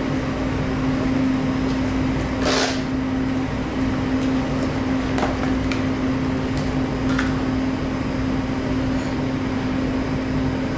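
Steady hum of kitchen machinery: a constant low tone over a low rumble. A brief swish comes about two and a half seconds in, and a few faint clicks follow later.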